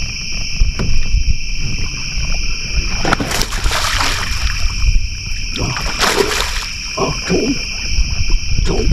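A hooked bass splashing and thrashing at the water's surface while being fought, in two bursts about three seconds in and again around six seconds. Behind it, a steady chorus of night insects.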